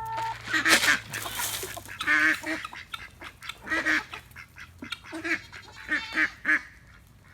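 Hungry chickens squawking and clucking again and again, with a short rush of noise about a second in.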